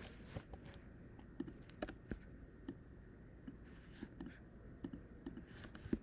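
Light, irregular clicking at a computer, mouse buttons and keys: about a dozen quiet clicks at uneven intervals.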